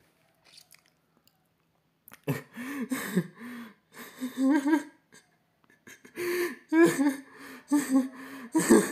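A man's voice making short breathy vocal sounds without clear words, in two stretches with a pause about five seconds in.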